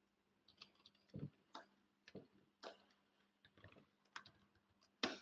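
Faint computer keyboard keystrokes: about a dozen irregular, separate clicks, the loudest near the end.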